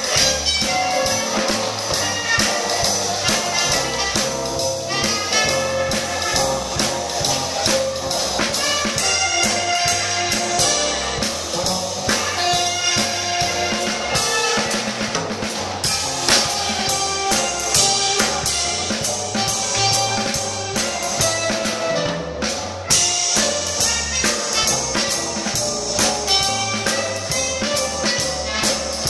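Live jazz band playing dance music, led by drum kit and brass, with a steady beat; the music drops out for a split second about 23 seconds in.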